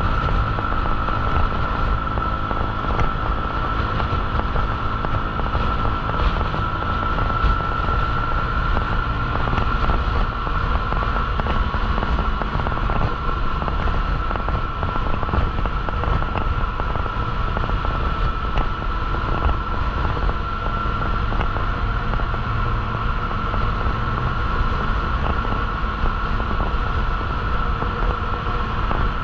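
Motorbike running at steady road speed, engine and road noise mixed with wind buffeting on the microphone, with a constant high-pitched whine over it.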